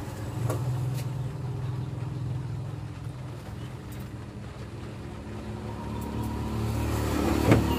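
Steady low motor hum, like an engine running nearby, with a few light clicks and a sharper knock near the end.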